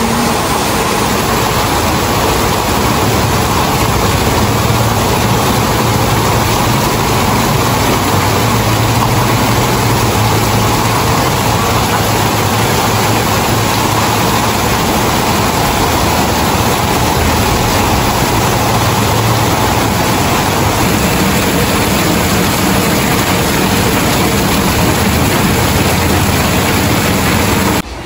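Very heavy rain pouring onto corrugated metal roofs and splashing on the wet street: a loud, steady, dense rush of noise.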